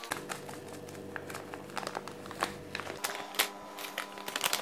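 Plastic spice sachet crinkling and crackling in the hands as curry powder is squeezed and shaken out of it into a bowl. A faint steady hum lies underneath for the first three seconds.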